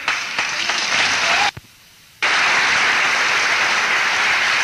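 Audience applauding, a dense patter of many hands. It cuts out for under a second about a second and a half in, then comes back steady.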